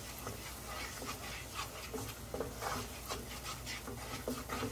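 Wooden spatula stirring and scraping a thick tomato, flour and spice paste around a nonstick frying pan, in repeated short strokes.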